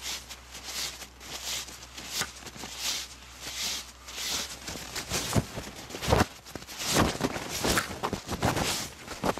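White paper napkins rustling and crinkling as they are twisted and pulled by hand, in repeated short swishes. It gets louder from about halfway, with a few dull bumps among the crinkles.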